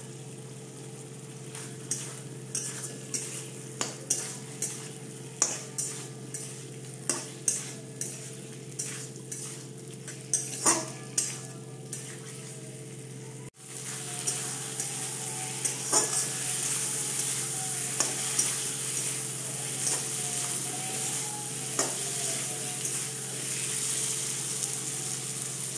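Metal spatula stirring fried potatoes and peas into masala in a metal wok: a run of scrapes and taps against the pan, about two a second, over a steady low hum. About halfway through, the sound changes abruptly to a steady sizzle of the masala frying, with an occasional scrape of the spatula.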